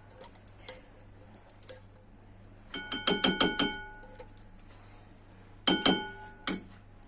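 Kitchen utensil clinking against a bowl, each strike leaving a short ringing tone: a quick run of strikes about three seconds in and a few more near the end.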